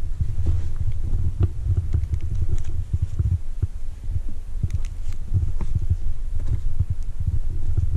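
Wind buffeting the microphone in a loud, uneven low rumble, with scattered light clicks and knocks over it.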